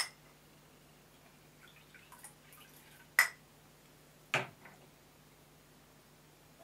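China crockery clinking, as a teacup or plate is set down. There are three sharp clinks, at the start, about three seconds in and a second after that, with faint rattling between them and a low steady hum underneath.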